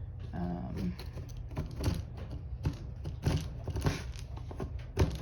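A putty knife chipping and scraping at hard, chalky old glazing putty in a wood window sash: a series of irregular clicks and scratches.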